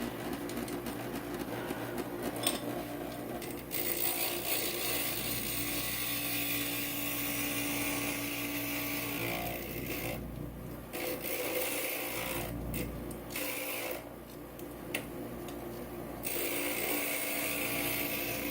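Inland stained glass grinder running, its diamond bit grinding the edge of a glass piece, with a steady motor hum under a hissing grind. The grinding noise drops away a few times in the second half, about a second or two each time, as the piece is lifted off the bit, then comes back.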